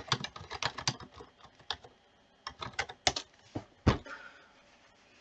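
Typing on a computer keyboard: a quick run of key clicks, a short pause of about half a second, then more keystrokes ending in one louder key press just before four seconds in.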